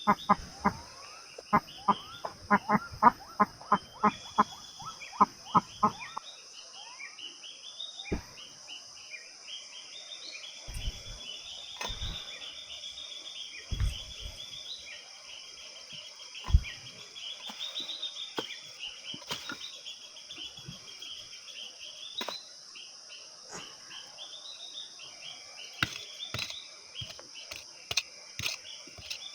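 Forest ambience of birds chirping over a steady high insect drone. A quick run of sharp knocks, about three a second, lasts the first six seconds, and a few single dull thumps come later.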